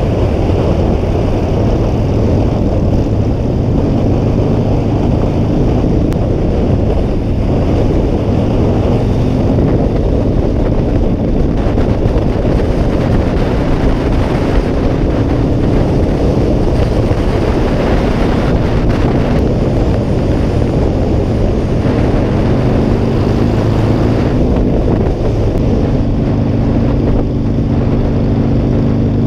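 Wind rushing over the microphone, with a Harley-Davidson Sportster's V-twin engine running steadily beneath it at cruising speed.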